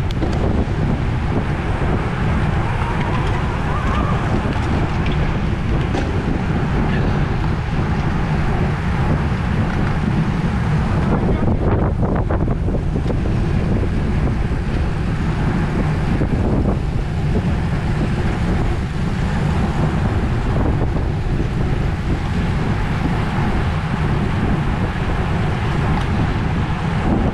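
Steady wind noise buffeting the microphone of a camera on a road bike riding at about 16 mph, a low rumble-heavy rush.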